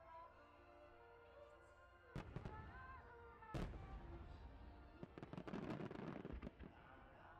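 No. 8 (eight-inch) aerial firework shells bursting overhead: one bang about two seconds in, a louder one about a second and a half later, then a quick run of sharp cracks, all over music in the background.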